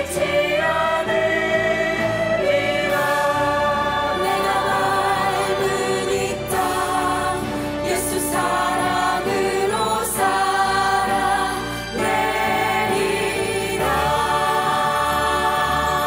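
A mixed group of men, women and a girl singing a Christmas song together in Korean, as a choir over musical backing.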